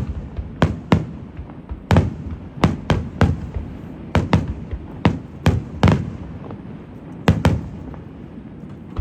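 Fireworks display: aerial shells bursting in quick, uneven succession, about fourteen sharp booms with low rumbling between them, tailing off in the last second or so.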